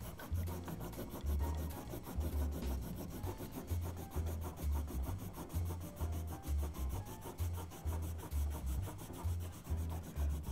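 Watercolor pencil rubbed back and forth across watercolor paper, a rhythmic scratchy rubbing of about two strokes a second, laying a second layer of pigment over a dried one to darken it.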